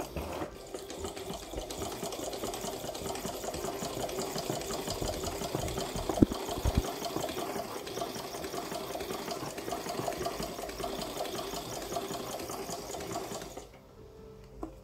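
USHA hand-operated straight-stitch sewing machine running steadily with a fast, even mechanical rattle as its handwheel spins to wind thread onto the bobbin. Two sharp clicks come about halfway through, and the running stops about a second before the end.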